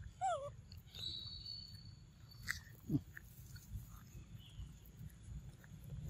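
Macaques calling softly while feeding on mango: a short high squeak falling in pitch about a quarter second in, and a brief low grunt falling in pitch about three seconds in.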